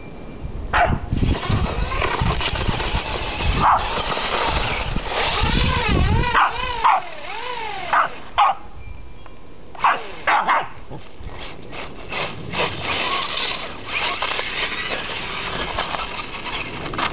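A small dog barks about six times, sharp single barks spread through the first ten seconds. Between the barks a Traxxas Stampede RC truck's electric motor whines, rising and falling in pitch as it is revved up and down over and over, with its tyres churning through snow.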